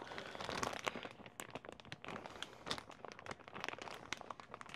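Plastic culture-tank parts and tubing being handled, with irregular small clicks and crinkles.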